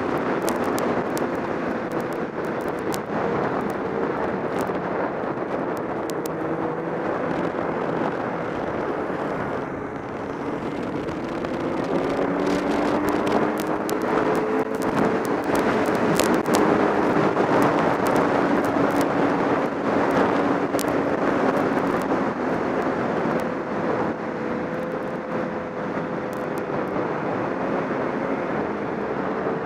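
Snowmobile engine running at speed, its pitch rising and falling slightly with the throttle, under wind rushing over a helmet-mounted microphone.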